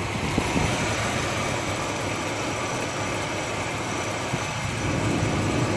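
Car engine idling steadily, with a running noise that the owner suspects may come from the AC compressor.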